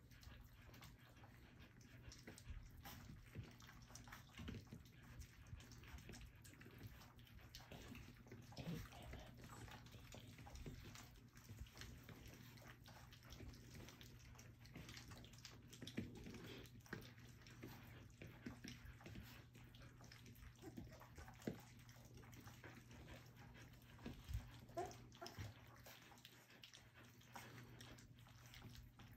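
Faint wet lapping and slurping of a litter of young puppies eating their first soft food from a stainless steel feeding pan, with scattered small clicks and a couple of short squeaks near the end.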